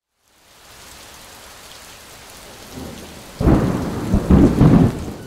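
Steady rain hiss fading in, then a sudden loud thunderclap about three and a half seconds in that rumbles on in a few swells for nearly two seconds.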